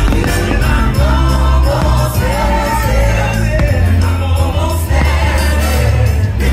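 Fireworks-show soundtrack played loud over the park's speakers: a choir singing over a heavy, sustained bass.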